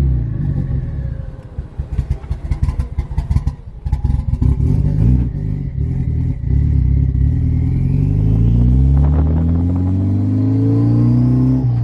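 Mitsubishi Lancer Evolution 8's turbocharged four-cylinder engine, loud: it runs choppy and uneven with sharp cracks for a few seconds, then pulls hard under acceleration, its pitch rising steadily through the second half.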